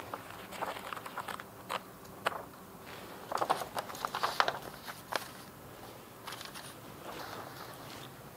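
Scattered soft clicks and rustles of paper being handled, with footsteps; a denser run of sharper clicks comes about three and a half to four and a half seconds in.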